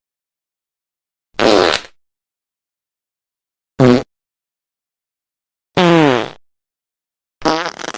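Four separate fart sound effects, each under a second long, with dead silence between them. The pitch wavers and slides within each one, and the last breaks up into a choppy sputter.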